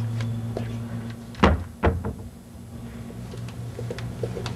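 Two short thuds about half a second apart, over a steady low hum.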